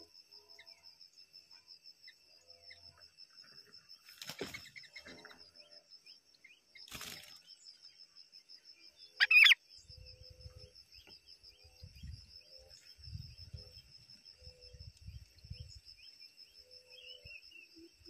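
Steady high-pitched insect trilling throughout, with a single short, loud bird call about nine seconds in and brief rustles of movement near four and seven seconds.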